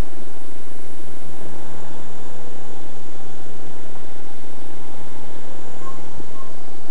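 Small electric RC helicopter flying close by, its motor and rotors giving a steady whirring hum, with a brief low thump about six seconds in.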